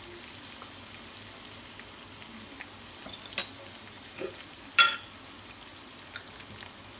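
Chicken liver and gizzard frying in oil in a kadhai, a steady sizzle. A few sharp clicks of the stirring spoon against the pan, the loudest about five seconds in.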